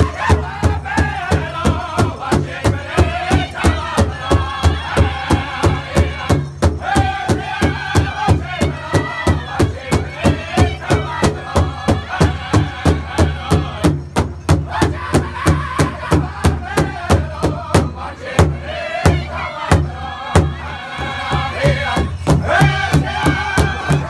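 Powwow drum group singing together around a large powwow bass drum, several drummers striking it in unison at a steady, even beat. The voices pause for a moment twice while the drum keeps going.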